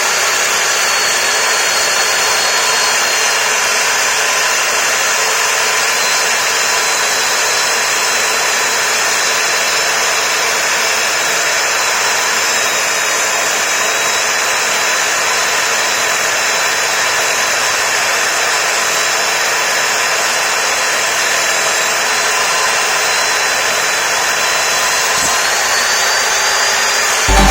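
FORTé 1800 W miter saw with a 255 mm blade running at a steady speed: an even, loud whirr with a thin high whine that rises slightly near the end.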